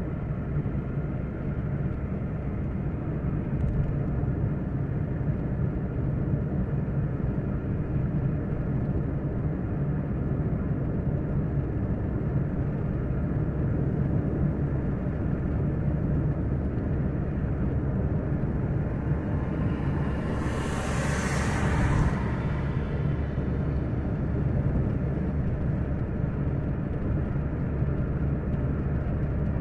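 Steady low road-and-engine rumble inside a moving car's cabin on a paved highway, with a brief rushing whoosh that swells and fades about twenty seconds in.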